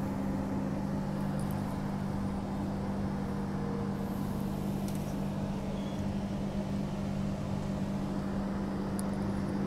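Steady hum inside a Transperth A-series electric multiple-unit train carriage, with a constant low tone under an even noise.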